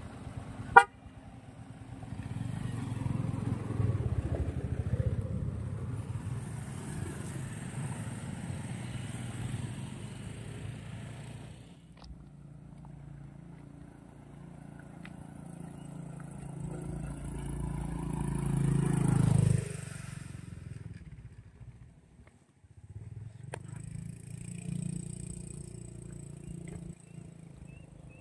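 Vehicle engines running on a construction road, with a short horn toot about a second in. The engine noise swells as one vehicle comes close, then drops away abruptly a little past halfway, and another vehicle is heard near the end.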